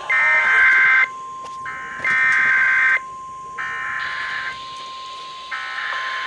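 Emergency Alert System SAME digital header: buzzing data bursts about a second long, a second apart. Three are loud and two fainter ones follow near the end, over a steady high tone. The header opens a new alert, a severe thunderstorm warning.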